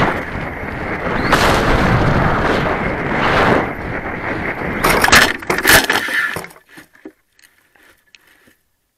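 Wind rushing over a model rocket's onboard camera microphone as the rocket comes down. About five seconds in, a cluster of knocks and rustles as it hits the ground and settles in grass, then only a few faint ticks.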